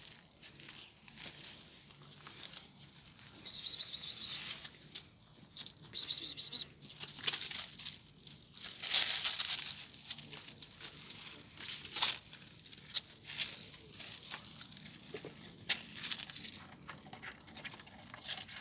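Scratching and rustling: two short spells of fast, fine rasping, a louder rushing burst lasting about a second near the middle, and a sharp click a few seconds later, with scattered faint ticks between.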